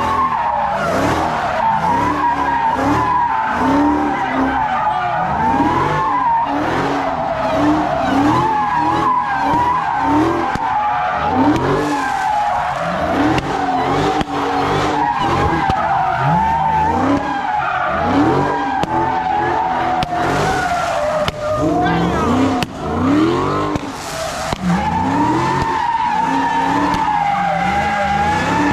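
Drift car doing donuts: a sustained tyre squeal that wavers around one pitch, with the engine revving up again and again underneath it, about once a second.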